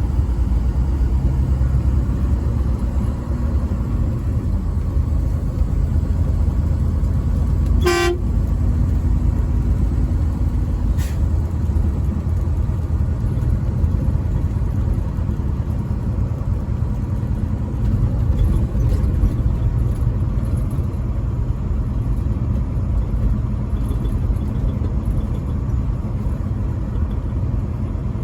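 A truck driving, with a steady low rumble of engine and road noise, and one very short horn toot about eight seconds in.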